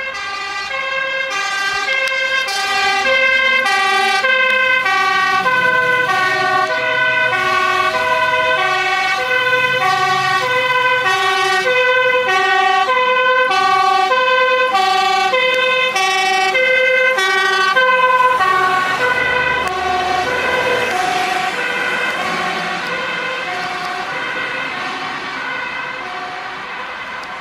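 Fire engine's two-tone siren, switching between a high and a low note about once a second as the truck drives past on an emergency call. From about two-thirds of the way in the siren fades as the truck moves away, with a brief rumble of engine and road noise.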